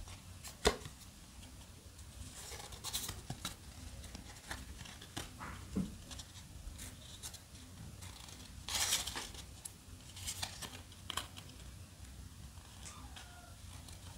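Trading cards slid one at a time from the front of a small hand-held stack to the back: faint papery swishes and light clicks, the loudest swish about nine seconds in.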